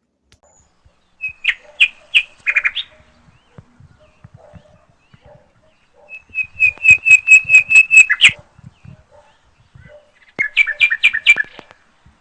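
A bird calling in three bursts of rapid, evenly repeated high chirps, the middle burst the longest and loudest.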